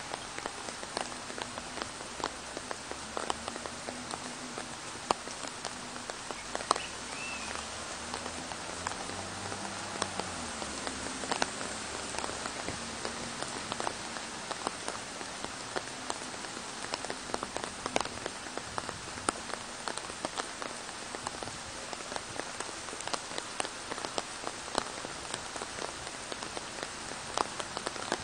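Steady rain falling through park trees onto leaves and grass: an even hiss with many sharp drop hits scattered through it.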